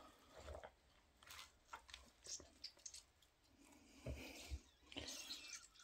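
Faint, intermittent wet squelching and crackling of raw egg and bits of eggshell in and under egg-soaked Nike Air Max 270 trainers as the feet shift, with two soft thumps about four seconds in.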